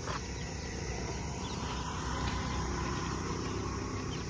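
Steady low outdoor rumble with a few faint high chirps.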